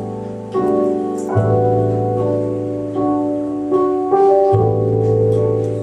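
Live jazz band music: sustained electric keyboard chords over a held bass note, the chords changing every second or so, with light cymbal strokes from the drum kit.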